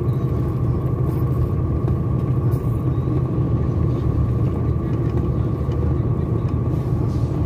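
Truck's diesel engine running steadily, heard from inside the cab, a low even rumble with a thin steady whine above it.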